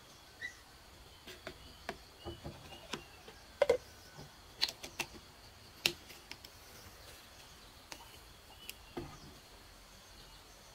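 About a dozen light clicks and knocks at irregular intervals, the sharpest a little before and a little after the middle, over a faint steady high hum.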